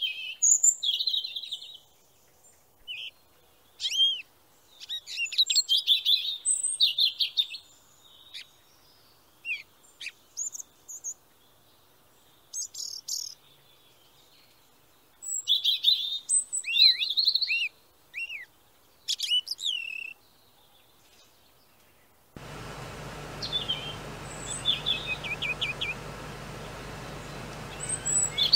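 Birds chirping and calling in scattered high-pitched bursts with short quiet gaps between. About three-quarters of the way through, a steady background noise comes in, with a few more chirps and a short trill over it.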